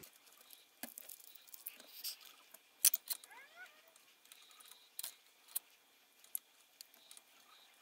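Faint scattered clicks and light knocks of small tools and parts being handled, with a brief squeak about three seconds in.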